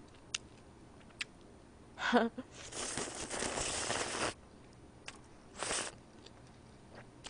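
Slurping makguksu buckwheat noodles and broth from a small bowl, close to the microphone: one long slurp of about a second and a half, then a brief second slurp about two seconds later. A few faint clicks come before it.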